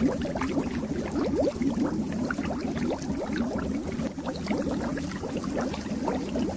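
Aquarium water bubbling continuously, many small bubbles rising and breaking at the surface in a dense, steady stream.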